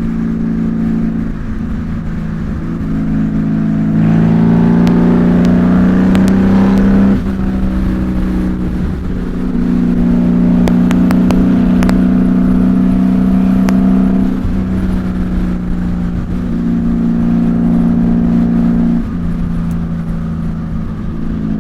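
Honda Valkyrie's flat-six engine running through Cobra six-into-six exhaust pipes under way. About four seconds in it pulls harder with rising pitch, drops at a gear change a few seconds later, then runs at a steady cruise, easing off and picking up again a couple of times.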